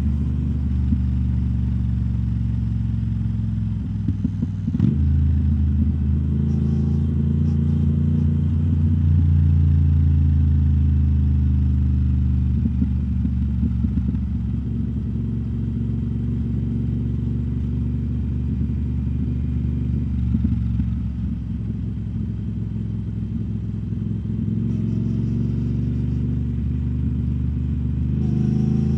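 2021 Triumph Speed Twin 1200's parallel-twin engine running under way through British Customs Turnout exhaust tips, steady at a relaxed pace. Its note steps briefly about five seconds in and climbs slightly near the end.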